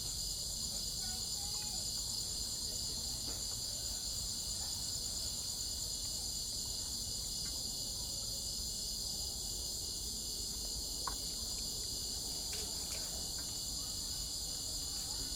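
Crickets chirping in a dense, steady chorus of high, rapidly pulsing trills, with a faint low rumble underneath.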